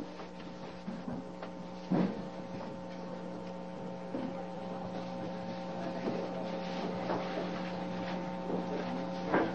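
Steady electrical mains hum from the sound system, with a couple of faint knocks, one about two seconds in and one near the end.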